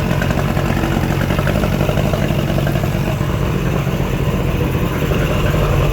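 1972 Mercury 65 hp in-line three-cylinder two-stroke outboard running steadily. It is running good, with new spark plugs and freshly tuned twin carburettors.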